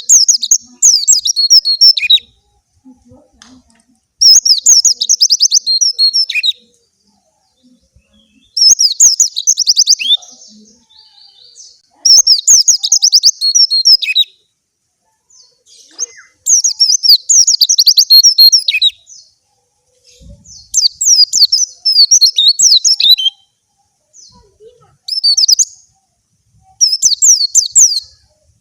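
Young pleci (white-eye) singing in eight bursts of rapid, high twittering phrases, each one to three seconds long, with short pauses between. It is in full song with its beak open, delivering its song material.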